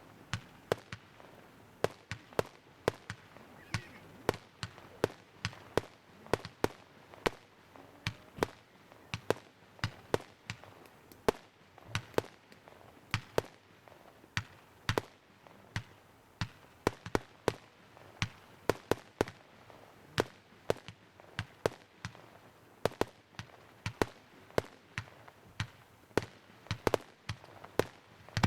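Fireworks display: sharp bangs and pops of shells bursting in an irregular, rapid sequence, often several a second.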